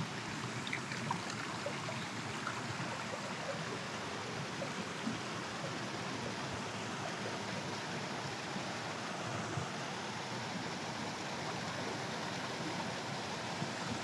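Shallow mountain stream running over rocks, with water spilling over a small weir upstream: a steady, even wash of flowing water. A few faint ticks stand out in the first few seconds.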